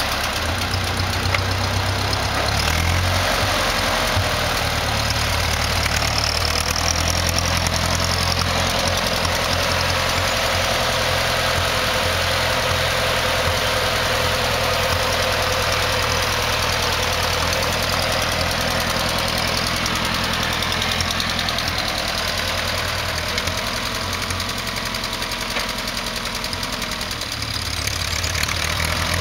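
1947 Ford 8N tractor's four-cylinder flathead engine running steadily as the tractor drives across grass. It fades slightly for a few seconds near the end, then rises again.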